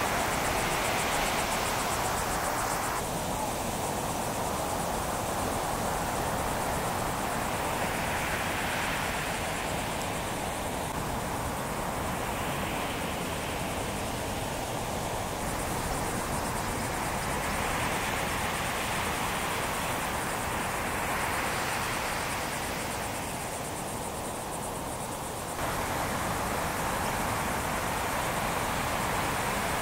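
Ocean surf: a steady rushing noise of breaking waves and wash, swelling and fading every few seconds, with wind on the microphone. The noise changes abruptly a few times.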